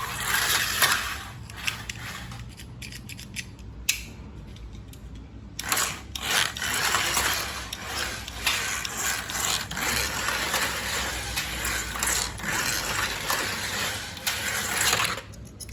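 Carrera slot cars running around a plastic track loop, their small electric motors whirring. The sound drops away briefly about four seconds in, then runs on steadily.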